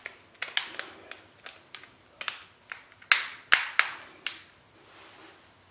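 A run of sharp, irregular clicks and taps from a smartphone being handled, the loudest few coming about three to four seconds in before they die away.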